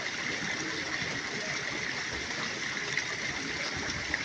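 Steady, continuous rush of running water.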